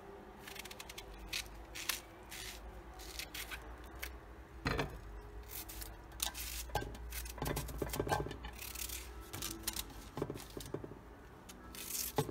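A small knife peeling and slicing a raw onion held in the hand: irregular short, crisp crunches and scrapes as the blade cuts through the layers, with pieces dropping onto parchment paper.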